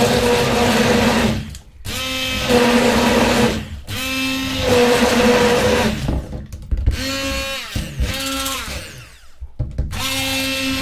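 Hand blender's motor whirring in a glass of water, churning the water. It is switched off and on about five times, dying away briefly each time and then spinning back up.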